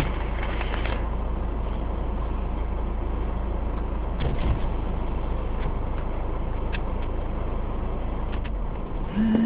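Car driving, heard from inside the cabin: a steady low engine and road rumble with a few faint ticks. The rumble drops away near the end as a short low hum sounds.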